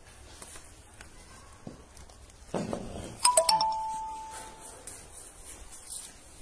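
A two-note ding-dong chime, a higher ringing note then a lower one, sounds about three seconds in, just after a dull scuffing bump. Otherwise there is only faint room noise.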